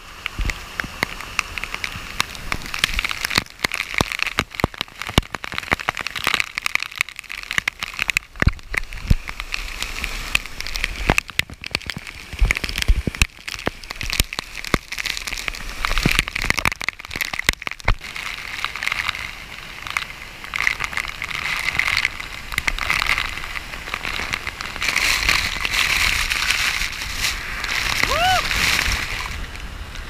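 Waterfall spray and falling water pelting the camera at close range: a loud, dense crackling patter of drops over the rush of the falls, swelling and easing in surges.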